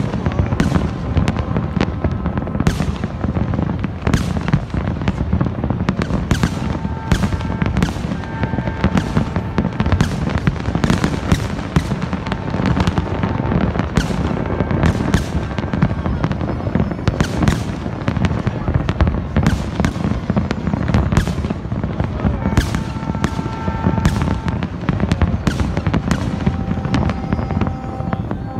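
Massed fireworks display: a constant low rumble of bursts with sharp bangs and crackles several times a second. Long steady horn tones sound over it now and then.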